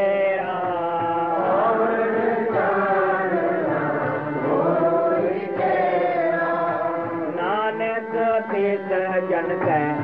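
A Gurbani shabad sung as devotional chant, the voice holding long melodic notes over a steady sustained drone. The phrasing turns shorter and more broken near the end.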